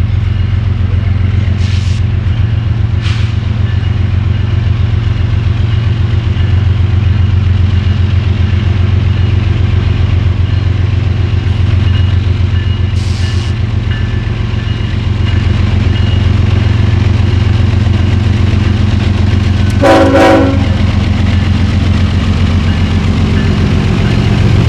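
Diesel locomotive engine running steadily, with a deep, fast-pulsing drone. A few short hisses come early and midway, and a short horn toot sounds about twenty seconds in.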